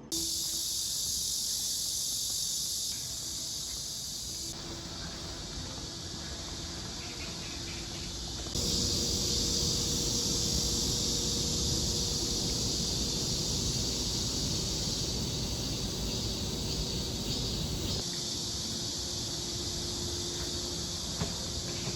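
Steady, dense high-pitched insect chorus over low background rumble. The level and texture change abruptly a few times, about 3, 4.5, 8.5 and 18 seconds in.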